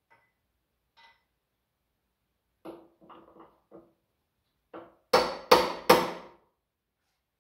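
Light metallic knocks and clinks, then three hard hammer blows on metal about a third of a second apart, each ringing briefly. This is a stuck part on a Ford 7610 tractor being struck to break it free, without success.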